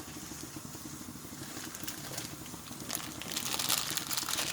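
Pot of water at the boil, bubbling with a steady crackly hiss, with a few louder sharp clicks near the end.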